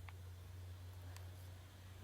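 Quiet room tone: a steady low hum with a few faint clicks, two at the very start and one about a second in.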